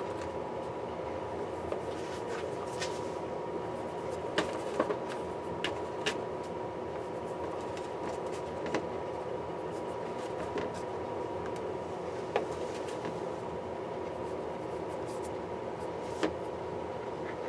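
Scattered light taps and clicks of eggplant pieces being handled and turned in a plastic bowl while coated with cornstarch, over a steady hum.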